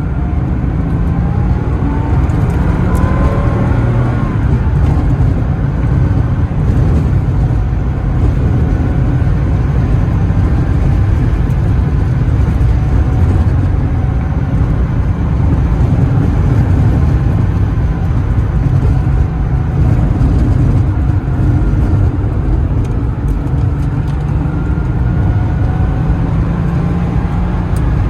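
Porsche 930 Turbo's turbocharged air-cooled flat-six running while the car is driven, with steady engine and road noise. The engine pitch rises as it accelerates about a second in and again near the end.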